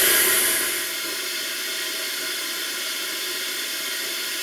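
Steady hiss of compressed air from a leak-down kit feeding a cylinder, holding the valve against its seat while the valve spring is off. It drops in level about a second in, then stays even.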